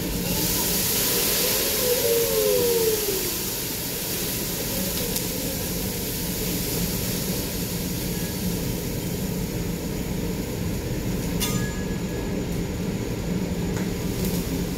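Food sizzling on a hot teppanyaki griddle over the steady rush of the grill's extractor hood, the hiss strongest in the first few seconds. A sharp click about eleven seconds in.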